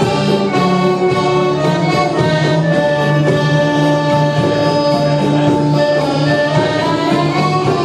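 A small live ensemble of violin, flute, cello and keyboard with drums playing an Arabic tune for belly dance, over a steady repeating low bass figure. Near the end a melody line slides upward.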